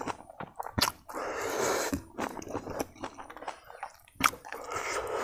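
Close-miked eating sounds: chewing with wet mouth clicks and smacks, along with a hand scraping and mixing crumbly food on a wooden plate, in two rustling stretches.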